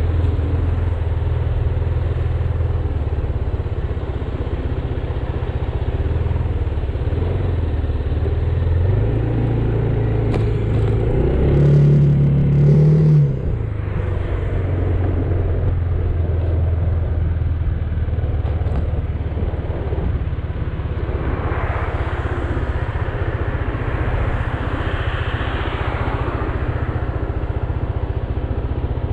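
Motor scooter engine running while riding off and cruising, with wind and road noise. It revs up and grows louder about ten seconds in, then eases off abruptly a few seconds later.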